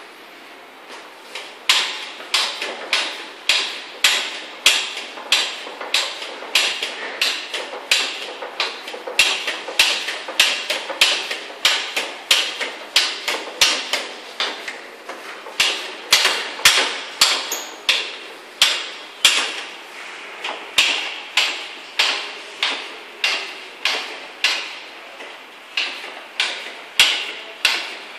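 Manual hydraulic hand stacker being pumped by its hand lever to raise the forks, a sharp metallic clank on each stroke, about three every two seconds, starting about two seconds in.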